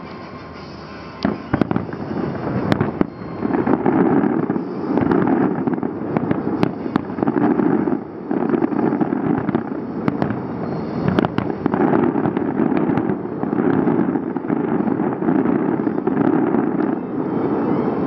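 Fireworks display: a dense run of shell bursts with crackle, sharp reports standing out among the booms. It is quieter for about the first second, then stays loud.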